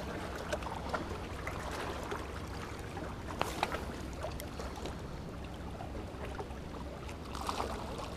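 Steady outdoor background noise with a low rumble, broken by a few faint clicks.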